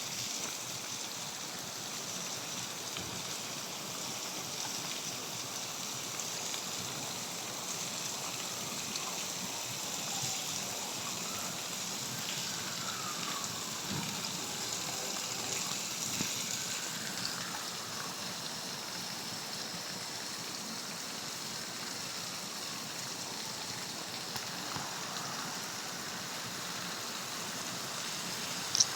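Heavy rain falling steadily, an even hiss of downpour. A single sharp click sounds near the end.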